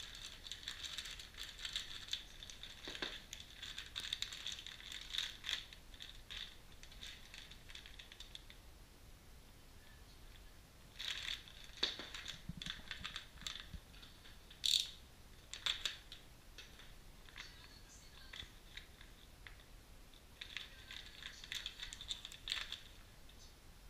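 Plastic bags of car suspension parts crinkling and rustling as they are handled in and lifted out of a cardboard box, with small clicks and knocks from the metal parts inside. The crinkling comes in three spells with quieter stretches between them.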